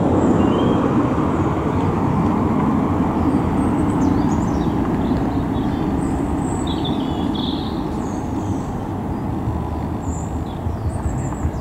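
Light high-wing propeller aircraft's engine droning as it flies overhead, slowly fading.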